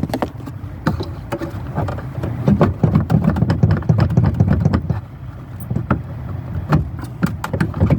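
Plastic tail-light lens housing of a 2007 Volvo XC90 being wiggled and pulled loose from the car body: irregular clicks, knocks and rattles, with dull low thumps heaviest in the middle few seconds.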